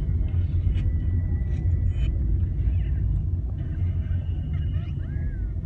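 Car driving slowly, heard from inside the cabin: a steady low rumble of engine and road.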